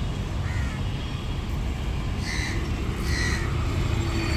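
Short bird calls, a faint one and then two clearer ones about a second apart, over a steady low rumble.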